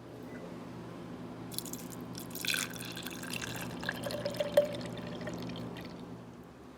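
Liquid trickling and dripping for a few seconds, over a steady low hum that cuts off near the end.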